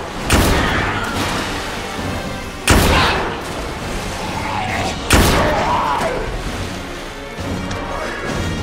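Three loud handgun shots about two and a half seconds apart, each with a booming echo, over a tense film score.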